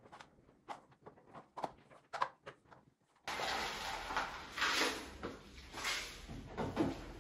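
Light, scattered clicks and knocks. About three seconds in, a louder stretch of clattering and rustling starts abruptly, like things being handled, opened and shut.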